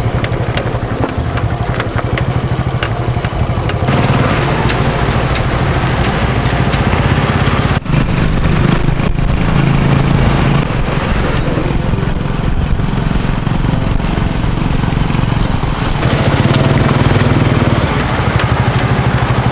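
A small motorcycle engine running steadily while riding along a road, with rushing wind and road noise over it. The engine note dips briefly about eight seconds in, then carries on.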